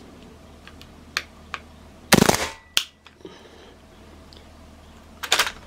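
Hatsan Blitz .22 PCP air rifle with an Emperor silencer firing a short burst of a few shots about two seconds in, then one more shot, and another short burst near the end. The full-auto cycle stops after a few rounds rather than emptying the magazine, which the shooter puts down to the silencer.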